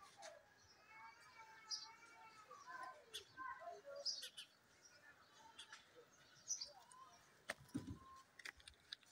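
Faint birds chirping, short high calls repeating every second or two, with a few sharp clicks and a low thump near the end.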